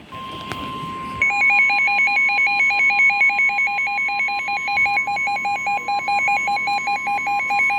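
Midland WR100 weather radio sounding a NOAA Weather Radio alert for a severe thunderstorm warning. The broadcast's steady 1050 Hz warning alarm tone holds throughout, and about a second in the radio's own alarm joins with rapid beeping that jumps between two pitches.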